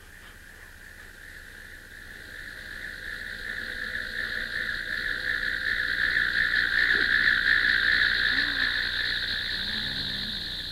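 Film sound effect of storm wind: a hissing, whistling drone that swells over several seconds and fades again, with faint sheep bleats near the end.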